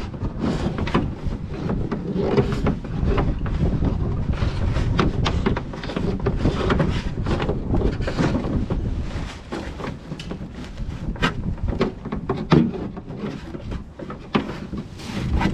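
Wind buffeting the microphone, with many scattered small knocks and clicks of hands working on the boat's wiring and fittings.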